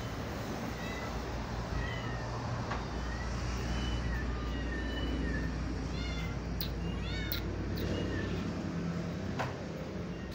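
Kittens mewing repeatedly in short high-pitched calls, a cluster of them coming quickly about six to seven seconds in, over a steady low rumble.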